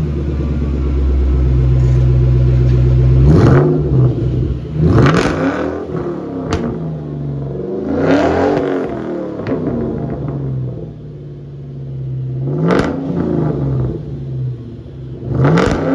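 Ford Mustang SVT Cobra's 4.6 L DOHC four-valve V8 heard at the exhaust, idling and then blipped about six times, each rev rising in pitch and falling back to a steady idle. The sound is described as amazing.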